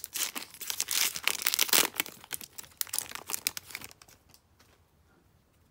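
Wrapper of an O-Pee-Chee hockey card pack being torn open and crinkled, a dense crackle that dies away about three to four seconds in as the cards come out.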